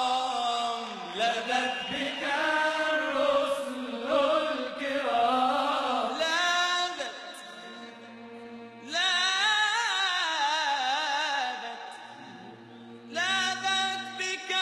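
Male Arabic religious singer (munshid) singing a melismatic nasheed, the voice winding and ornamenting around each note in long phrases. The voice eases off twice, with a low held note underneath.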